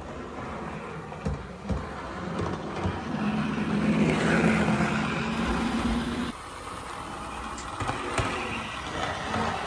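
A Bachmann 00 gauge Class 47 model diesel locomotive running on DC: its motor hums, with clicks from the wheels on the track. It is loudest a few seconds in as it passes close, then falls away suddenly just past the middle.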